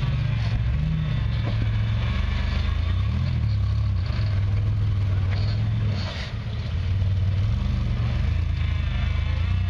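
Off-road vehicle engine running and revving, its pitch rising and falling several times, with a brief drop about six seconds in.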